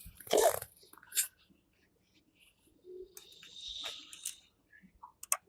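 Handling noises from small plastic kit parts and connector wires: a few short clicks and a brief rustle, with a sharper click pair near the end.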